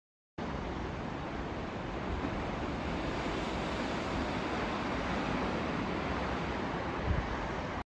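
Ocean surf washing into a rocky cove, a steady rush of breaking waves, with some wind on the microphone. It starts suddenly just after the beginning and cuts off just before the end.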